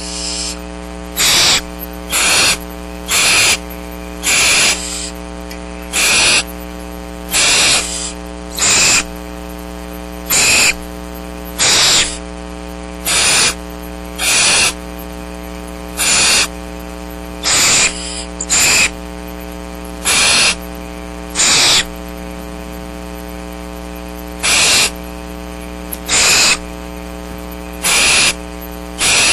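Barn owl owlets giving hissing food-begging calls, each about half a second long, repeating every one to two seconds, over a steady electrical hum.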